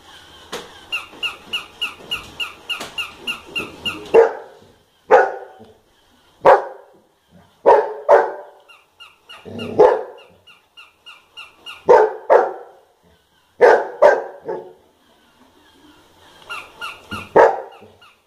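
A golden retriever barking loudly in single barks and pairs, a second or two apart, at a battery-operated walking toy puppy. The toy yaps in a quick, even electronic rhythm of about three yaps a second, at the start, in the middle and near the end.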